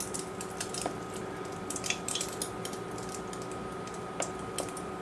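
Rabbit meat being pressed and turned in a pan of flour, with the metal pan knocking against the pot: soft, irregular little clicks and rustles, over a faint steady whine.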